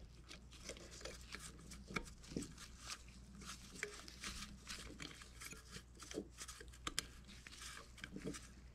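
Faint rustling of nitrile-gloved hands with small scattered clicks as valves are fitted by hand into a pump head.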